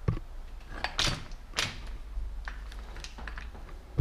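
Feedback Sports bike repair stand being put together and adjusted by hand: sharp knocks and clicks of its clamp head and tube. There is a knock right at the start, two stronger ones about a second and a second and a half in, then lighter clicks.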